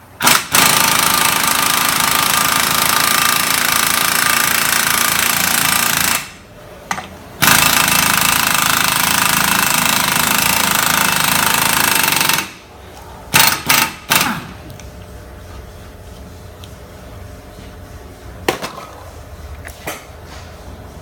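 A power tool running hard in two long bursts of about five to six seconds each, with a short pause between, followed by a few sharp metal knocks and quieter handling noise.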